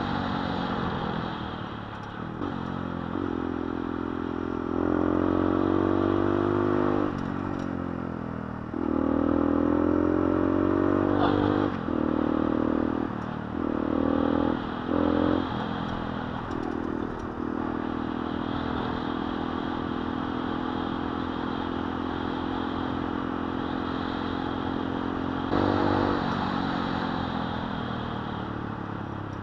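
Small motorcycle engine, a Gilera SMT with a 125 cc engine swap, pulling up through the gears in several rising runs, then a few short throttle blips. It settles into steady cruising, rises briefly, and then eases off near the end.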